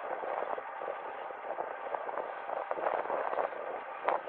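Diesel locomotive NSU52 running steadily as it creeps forward over the points, with a brief sharper knock about four seconds in.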